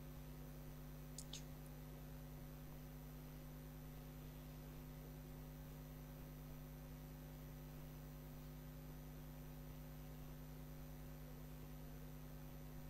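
Faint steady electrical hum with low hiss and no speech. A brief faint click comes about a second in.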